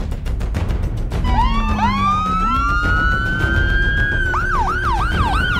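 Ambulance siren starting a little over a second in with a slow wail, then switching to a fast yelp about four seconds in, over background music.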